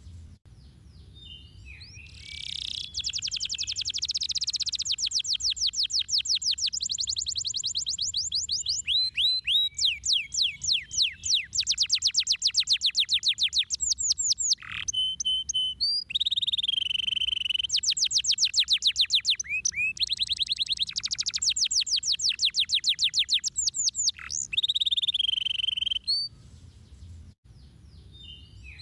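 Domestic canary singing a long song of fast trills of rapidly repeated high notes, linked by short whistled phrases. It breaks off briefly near the start and again near the end.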